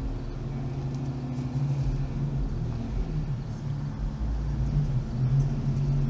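A motor vehicle's engine running with a steady low hum and rumble.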